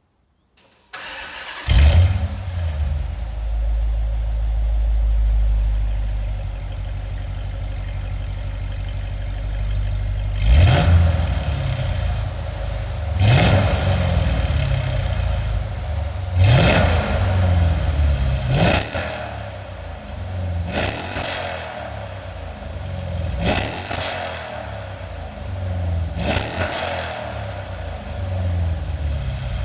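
Dodge Challenger R/T's 5.7-litre Hemi V8 cranked and started about a second in, flaring up as it catches, then idling steadily for about eight seconds. From about ten seconds in it is revved in quick blips, about eight of them, each a sharp rise and fall two to three seconds apart.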